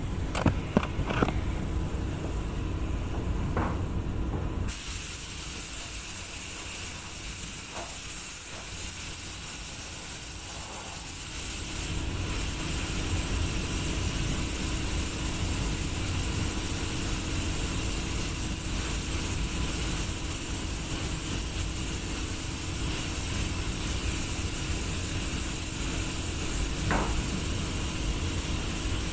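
Compressed-air paint spray gun hissing steadily in a spray booth, cutting in suddenly about five seconds in, over the steady hum of the booth's fans. A few knocks from handling the gear come in the first seconds and once near the end.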